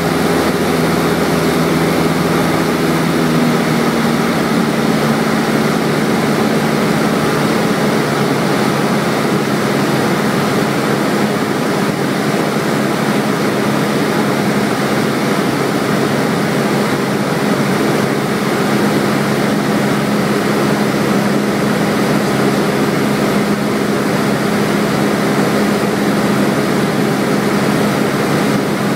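Cessna 172SP's four-cylinder Lycoming engine and propeller droning steadily in flight, heard inside the cabin. The engine note drops slightly about three to four seconds in, then holds steady.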